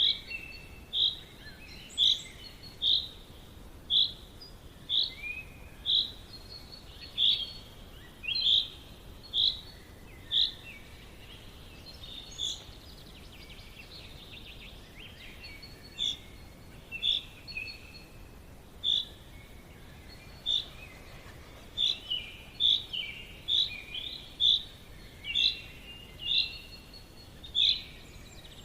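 Forest birds singing. One bird repeats a short, high, clear note about once a second, pausing for a few seconds midway, with softer chirps from other birds between, over a faint steady background hiss.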